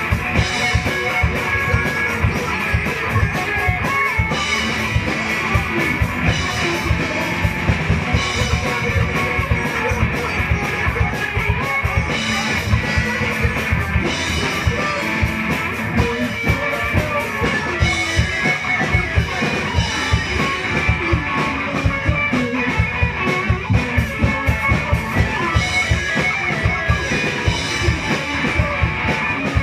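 Live rock band playing: electric guitars over a drum kit keeping a steady beat, with no break.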